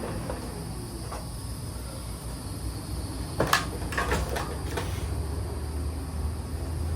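A quick run of about six sharp clicks and knocks from hand tools and hardware being handled during a lattice repair, over a steady low hum.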